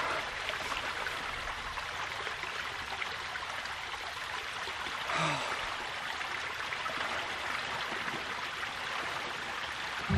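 Steady rush of water gushing out over a plastic sheet and flowing away across the ground, with one short falling sound about five seconds in.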